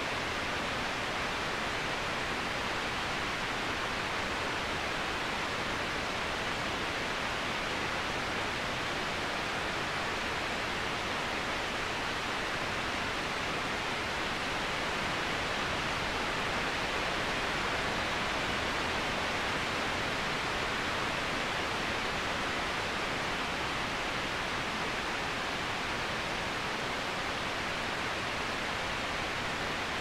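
Waterfall: a steady, even rush of falling water, more hiss than rumble.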